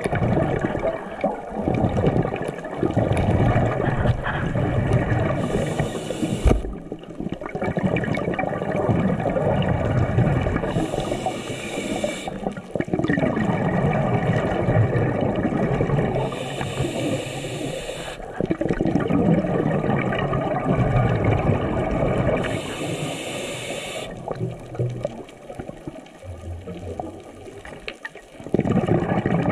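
Underwater sound picked up by a GoPro 7: a steady rush and bubbling of water, with a brief hiss four times, about every six seconds.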